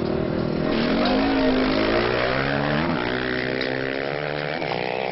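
Off-road racing motorcycle engine running hard, its pitch dipping, then climbing and slowly falling again.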